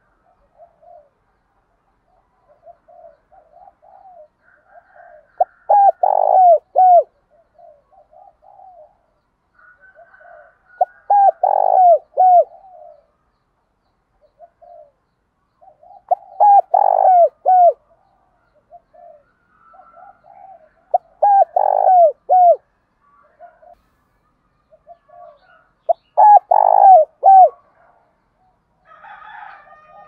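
Spotted doves cooing: five loud phrases of several coos each, about every five seconds, with quieter cooing between them.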